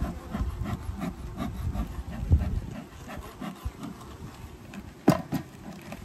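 Wooden hive frame being worked loose and lifted from a Layens beehive: wood scraping and rubbing in short strokes, with a knock a couple of seconds in and a sharp crack about five seconds in.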